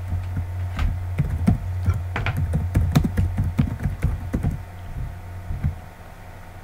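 Computer keyboard being typed on, a quick run of keystroke clicks for about four seconds that thins out and stops, over a steady low hum.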